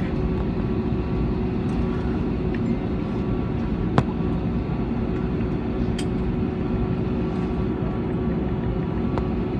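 Airbus airliner cabin noise as the plane taxis after landing: a steady low rumble of the engines and air system with a constant hum. A sharp click comes about four seconds in, and another about six seconds in.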